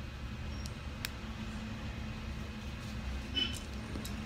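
Small plastic building bricks being handled and pressed together: a sharp click about a second in and a short cluster of brighter clicks about three and a half seconds in, over a steady low background hum.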